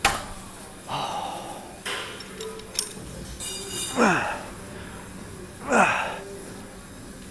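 A weightlifter breathing hard and straining through the reps of a set, with a sharp exhale about a second in and two short grunts falling in pitch in the second half. A few clicks from gym equipment come before the grunts.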